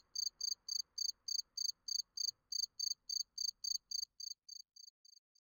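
Cricket chirping in an even pulse of short high chirps, about three a second, fading out over the last second or so. It is the stock 'awkward silence' cricket sound effect, answering the question just put to the audience.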